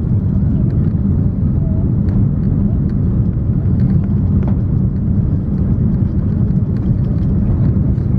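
Steady low cabin rumble inside an Airbus A340-300 descending on approach: its four CFM56 engines and the airflow over the wing, heard from a seat by the wing, with faint scattered clicks from the cabin.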